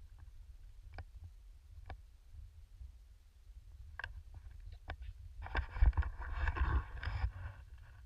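Skis hissing through powder snow, swelling into a louder rush of snow for under two seconds past the middle, over a steady low wind rumble on the microphone, with a few sharp ticks in the first half.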